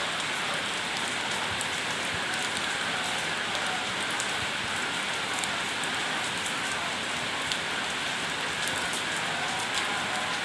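Steady rain falling: an even hiss dotted with many small sharp drop ticks.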